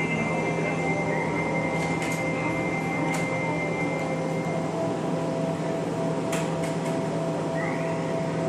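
Hurricane simulator blowing at high speed: a steady, loud rush of fan-driven wind buffeting the microphone, with a constant machine hum and a few brief clicks.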